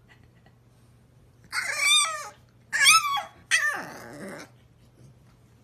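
French bulldog puppy 'talking': three short vocal sounds that rise and fall in pitch, starting about a second and a half in, the last trailing off longer than the others.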